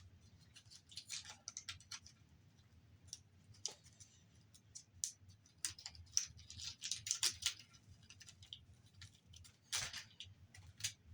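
Irregular clicks, taps and short scrapes of small plastic and metal parts being handled and pried apart while a Blu-ray player is dismantled by hand.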